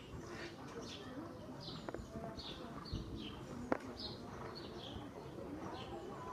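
A bird calling over and over in short high notes, each falling slightly in pitch, about two a second. A single sharp knock about three and a half seconds in.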